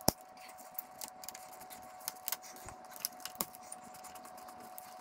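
Scattered light clicks and ticks of a hand nut driver and small bolts as a wiring harness is unbolted from the side of a motorcycle radiator, with one sharp click at the very start. A faint steady hum lies underneath.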